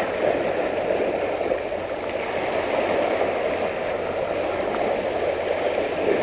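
Small sea waves washing and sloshing over rocks at the water's edge: a steady rushing of water.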